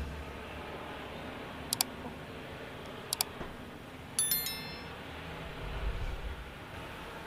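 Subscribe-button overlay sound effect: two quick double mouse clicks about a second and a half apart, then a bright bell chime that rings briefly and fades. A faint low rumble follows near the end.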